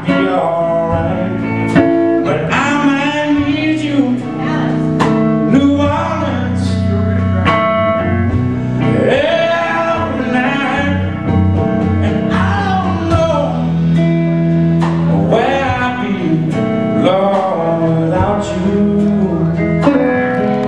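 Live blues band playing: a male singer over guitar, with a steady bass line and drums.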